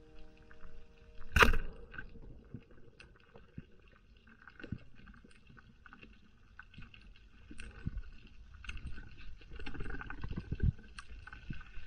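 Underwater: a speargun fires with one sharp, loud crack about a second and a half in. It is followed by scattered small clicks, knocks and low thumps of gear and water moving around the diver, busier near the end.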